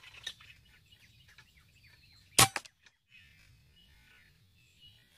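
A single sharp air-rifle shot about two and a half seconds in, followed a moment later by a fainter second crack. Small birds chirp faintly in the background.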